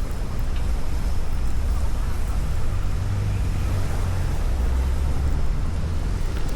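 Steady low rumble of street traffic over an even hiss, swelling a little in the middle.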